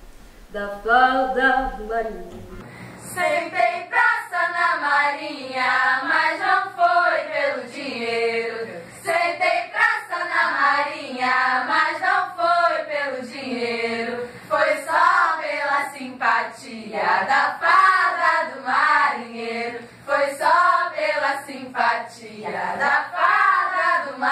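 A small group of women's and men's voices singing a chant together, with a wavering melody. It grows louder about two and a half seconds in.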